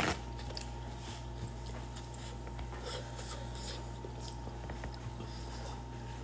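Faint eating sounds: quiet chewing and scattered small clicks of chopsticks and a spoon against a ceramic bowl of noodle soup, over a steady low background hum.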